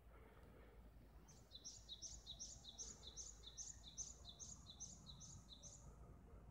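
A small songbird singing faintly, one short two-note phrase repeated about ten times at roughly two a second, a higher note then a lower one. It starts about a second in and stops a little before the end, over a faint low rumble.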